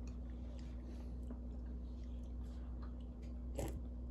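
A toddler eating: faint clicks of a metal spoon against a glass bowl and soft chewing, with a sharper click about three and a half seconds in, over a steady low hum.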